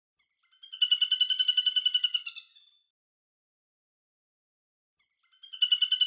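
Little grebe giving its high, rapid trilling call, a string of quick notes lasting about two seconds; a second trill begins near the end.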